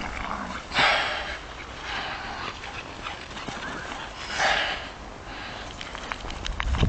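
A Staffordshire Bull Terrier and a Tervueren play-fighting, with short rough bursts of dog noise about a second in, at two seconds and at four and a half seconds.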